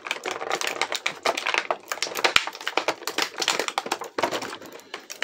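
Clear plastic blister tray crinkling and crackling in a dense, irregular run of clicks as small toy figures are pried out of it by hand.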